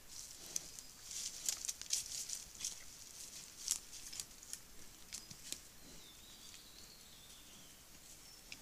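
Giant panda walking on loose stones: a run of short, sharp crunches and clicks, densest over the first few seconds, that thins out after about five seconds as the panda slows.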